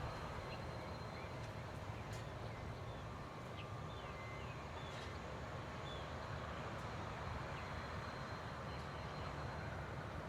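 Rice-field ambience: a steady low rumble and hiss, with scattered short high chirps of small birds throughout.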